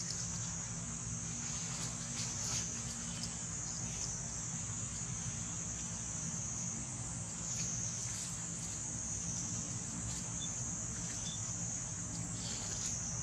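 Steady high-pitched insect chorus from the forest, running without a break over a low steady hum, with a few faint clicks.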